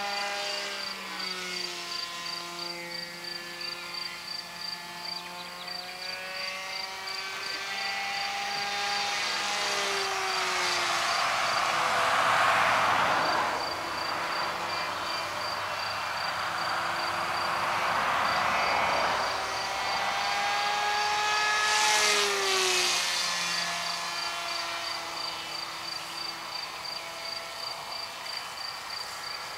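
Radio-controlled model F-16 jet powered by a Speed 600 electric motor flying circuits: a whining motor tone that slides up and down in pitch, swelling louder with a rush of air three times as it passes. Crickets chirp steadily underneath.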